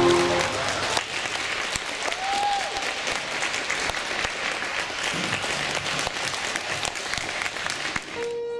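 Audience applauding steadily, as a burst of music dies away at the start; a new piece of music begins just before the end.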